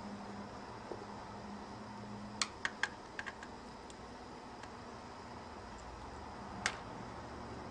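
Short sharp plastic clicks and taps from an Asus laptop being taken apart by hand. A quick cluster comes about two and a half seconds in and a single click near the end, over a faint steady low hum.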